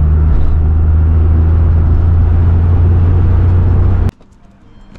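Car engine drone and road noise heard inside the cabin while driving at motorway speed, steady and loud, cutting off suddenly about four seconds in.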